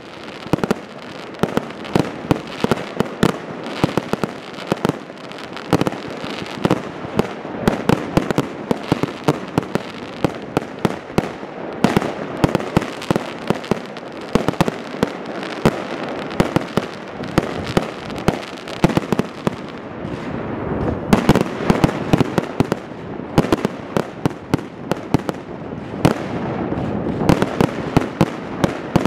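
Fireworks display: aerial fireworks bursting in a dense, unbroken barrage, with sharp bangs several times a second over continuous crackling.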